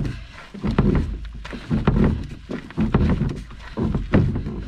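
Walking with a Hornbeck canoe carried overturned on the shoulders: footsteps, with the hull and yoke jostling and knocking, in an uneven rhythm of low thuds about one or two a second.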